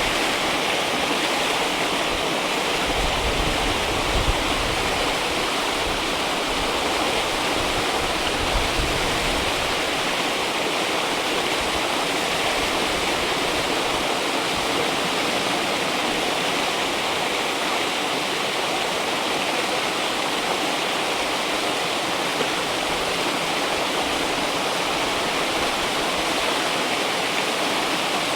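River water rushing in a steady, continuous flow, with brief low rumbles a few seconds in and again about eight seconds in.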